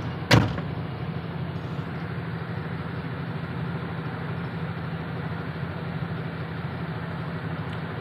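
Truck diesel engine idling as a steady low hum, with one sharp bang about a third of a second in.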